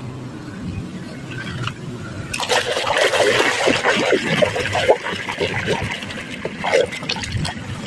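A hand squeezing and scrubbing a sponge in a basin of foamy, muddy soapy water: wet squelching and sloshing with many short crackles, starting about two seconds in.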